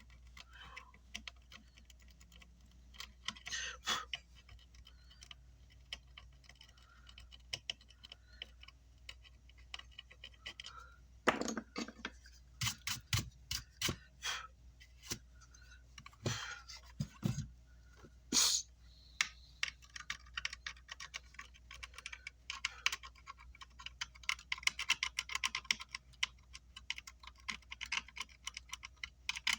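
Scratchy, rapid clicking of a brush scrubbing leftover solder flux off an amplifier circuit board, with scattered sharper knocks and taps between about 11 and 19 seconds in. The scrubbing turns dense and continuous in the last ten seconds.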